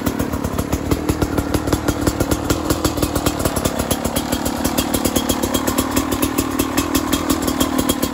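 Beta RR 300 two-stroke single-cylinder engine running at idle with a steady pulsing beat of several pulses a second, on its first run after a rebuild with a new connecting rod and piston.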